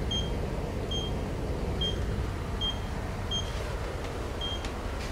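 Steady low rumble of a boat under way, heard from inside its wheelhouse, with a short high electronic beep repeating six times, roughly once a second.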